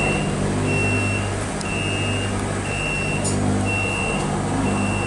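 Tram door warning beeper giving a single high beep about once a second, over the steady low hum of the stationary tram.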